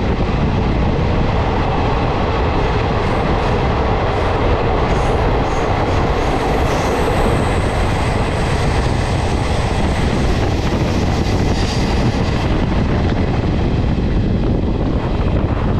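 Express passenger train running at speed, heard from an open coach doorway: a steady, loud rumble and rush of wheels on rails and passing air, partly while running through a tunnel.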